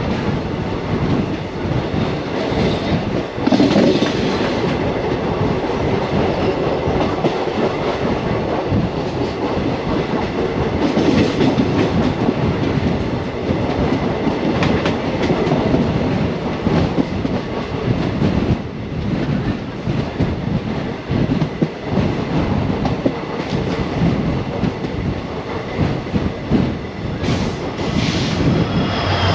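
Passenger train running along the track, heard from its own moving coach: a steady, loud rumble of the wheels and rush of air, with rapid clicks from the wheels passing over rail joints.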